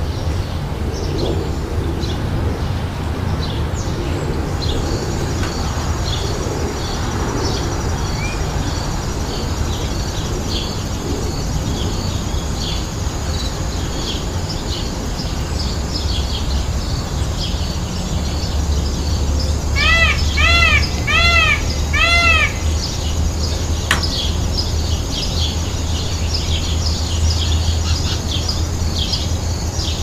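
Many small birds chirping continuously over a steady low rumble. About twenty seconds in, four loud calls come in quick succession, each rising then falling in pitch, and the same calls start again at the very end.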